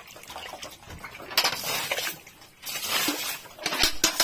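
Water thrown from a bucket splashing onto the wet concrete floor of a pig pen, in three dousings: about a second and a half in, about three seconds in, and briefly near the end.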